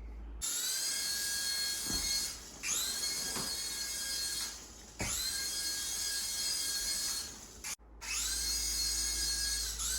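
Heliball toy helicopter's small electric rotor motors whining in four spells of about two seconds each, each one rising in pitch as the rotors spin up, then holding steady before stopping.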